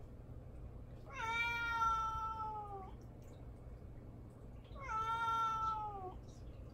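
Munchkin cat meowing for attention: two long, drawn-out meows about two seconds apart, each holding its pitch and sliding down a little at the end.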